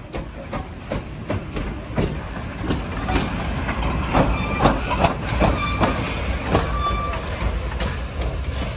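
Soviet L-class 2-10-0 steam locomotive L-3535 rolling slowly past at close range. It makes a steady rhythm of sharp beats over a low rumble, growing louder through the first few seconds as it nears, with a few brief high squeaks.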